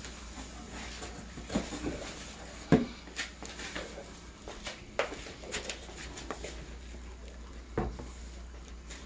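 Plastic wrapping rustling and packaging knocking as monitor parts are lifted out of a styrofoam-packed cardboard box: scattered short knocks and rustles, the sharpest knock about three seconds in.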